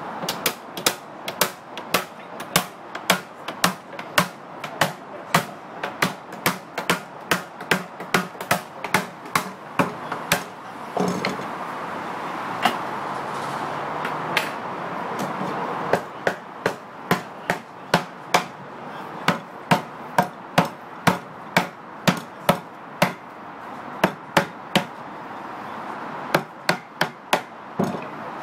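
A cooper's hammer strikes a hoop driver, driving the steel hoops down onto an oak whisky barrel. The blows are sharp and come in runs of about two a second. Near the middle only a few blows fall for several seconds, and there is another short break shortly before the end.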